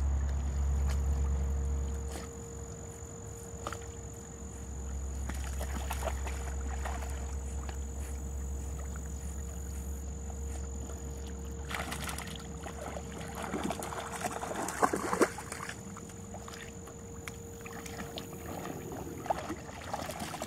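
Water splashing and sloshing as Labrador puppies swim, with a cluster of louder splashes about twelve seconds in and again a couple of seconds later, over a low rumble on the microphone.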